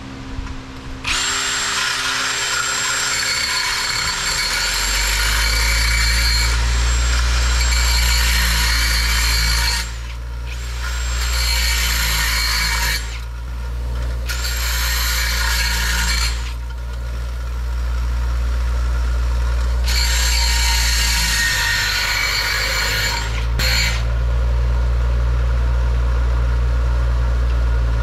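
A steel bolt spun in a drill and ground against a running grinding wheel, rounding its cut end into a replacement brake pushrod. The grinder's motor hum runs steadily throughout, and the harsh high grinding noise comes in four spells, the first and longest lasting about nine seconds, easing off whenever the bolt is lifted from the wheel.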